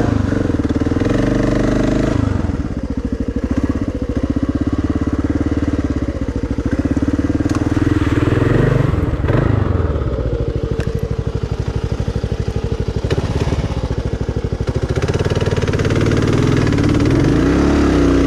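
Kawasaki KLR650's single-cylinder four-stroke engine running under way, its revs rising and falling as the throttle is worked.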